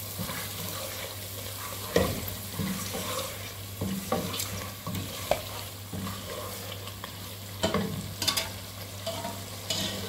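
Wild duck pieces sizzling as they fry in oil and spices in a steel pot, stirred with a wooden spoon that knocks against the pot now and then, loudest about two seconds in. The meat is being browned in its masala until the oil separates.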